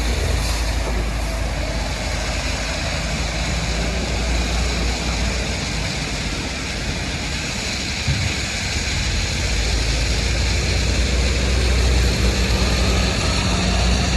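Heavy machinery engine running steadily with a low drone, with a short knock about eight seconds in.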